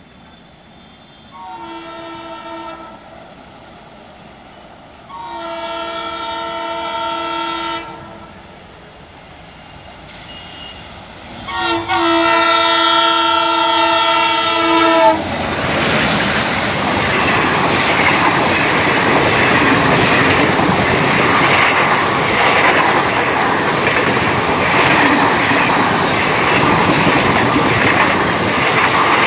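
Twin ALCO diesel locomotives sounding three multi-tone horn blasts, each longer and louder than the last. After the third blast the train passes close by: the diesel engines run and the coach wheels clatter over the rail joints, a loud, steady rumble that lasts to the end.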